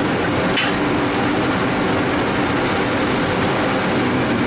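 Steady drone of a commercial kitchen's equipment, with a pan of cream-based leek sauce bubbling hard on a gas burner.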